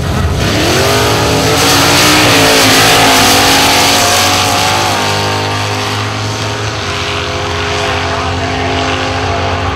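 Two vintage drag-racing cars launching hard off the starting line at full throttle. Their engines climb steeply in pitch with gear changes along the way, then ease off as the cars run away down the quarter-mile.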